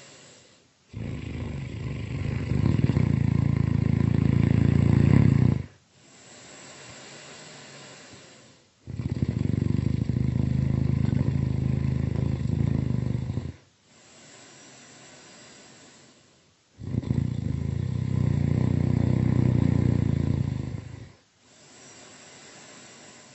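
Loud snoring: three long, low snores of about four to five seconds each, with quieter breathy exhales between them.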